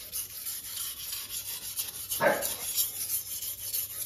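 Steel kitchen knife blade stroked back and forth on a water-soaked whetstone, a wet rasping scrape a few strokes a second, as the stone takes metal off the edge. One stroke a little past halfway is louder than the rest.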